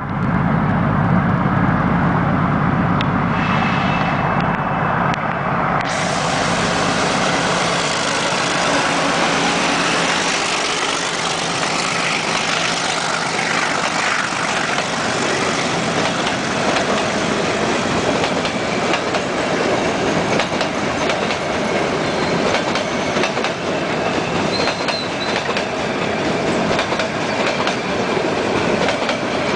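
Metre-gauge train running on the track, a loud steady rumble throughout. A strong low hum fills roughly the first ten seconds and then fades away.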